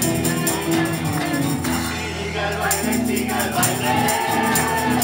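Music with singing over a steady percussion beat.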